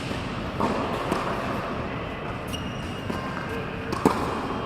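Tennis balls struck by rackets and bouncing on an indoor court: a few sharp hits, irregularly spaced, the loudest near the end, over steady background noise.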